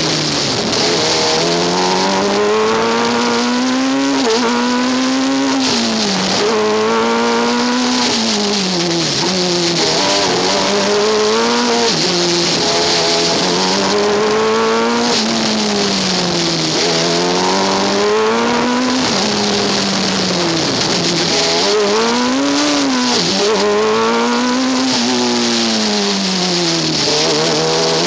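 Formula Student race car's engine heard from onboard, its pitch climbing and dropping again and again every few seconds as the car accelerates out of and lifts for corners, over a steady hiss of wind and road noise.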